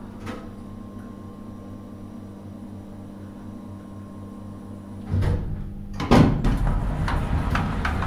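Elevator running with a steady motor hum. About five seconds in comes a clunk, then a second later a louder rattling slide with scattered clicks, typical of the elevator doors working; this is the loudest part.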